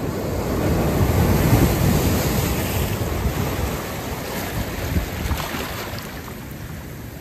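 Surf washing in over boulders and cobbles on a rocky shore, the wash swelling about a second in and then easing, with wind buffeting the microphone.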